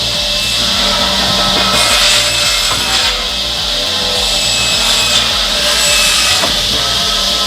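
Powered firewood saw cutting through wood, a steady loud rasping.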